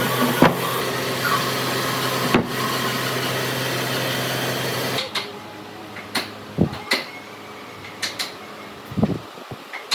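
An electric power tool running steadily, stopping suddenly about halfway through; after it, scattered light knocks and taps, as of wood being handled.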